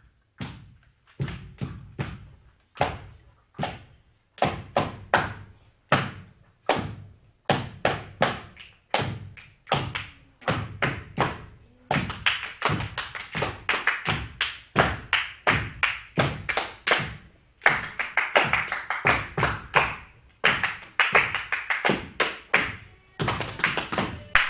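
Percussive hits in an uneven rhythm: sharp knocks and thuds, each dying away quickly, that come closer together as they go. From about twelve seconds in, denser clap-like strokes join them.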